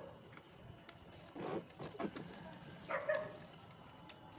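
A few brief animal calls, the clearest about three seconds in.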